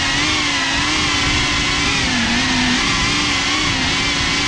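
FPV drone's electric motors and propellers whining as it hovers, heard through the GoPro mounted on the drone itself. The pitch wavers up and down with the throttle, dipping briefly about two seconds in, over a steady rush of prop wash.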